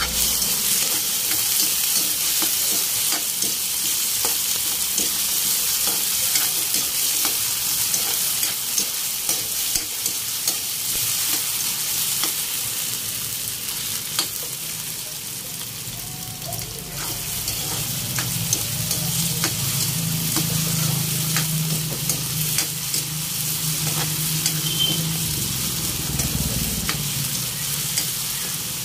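Diced potatoes sizzling in hot oil in a wok, with a metal spatula scraping and tapping against the pan as they are stirred. A steady hiss, broken by many short clicks.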